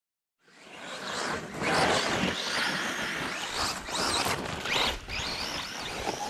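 Radio-controlled cars driving over dirt and wood chips: motor noise rising and falling with the throttle, mixed with tyres scrabbling on loose ground, fading in about half a second in.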